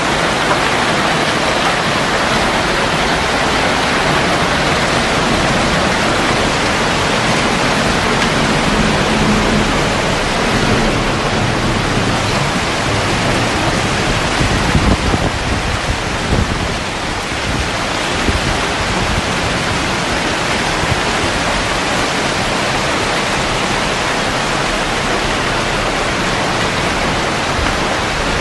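Torrential rain in a thunderstorm: a steady, heavy hiss of downpour, with a brief low rumble about halfway through.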